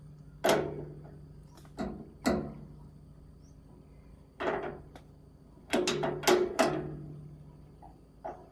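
Metal clanking: about eight separate knocks on steel, each ringing briefly, with a quick cluster of four a little past the middle.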